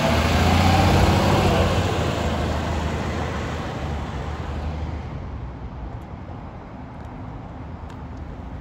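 Rescue ambulance truck's engine running as it drives past and pulls away. It is loudest about a second in and fades over the next four seconds to a quieter background of traffic.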